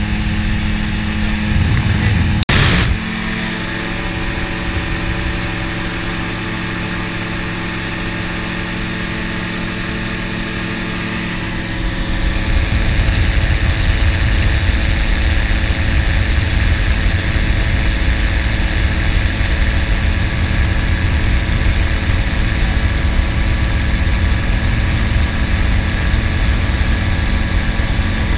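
Gyroplane engine and pusher propeller running steadily in cruise flight: a constant drone with a steady engine tone. A short click comes about two and a half seconds in. From about twelve seconds in the sound turns louder, with a heavier low rumble.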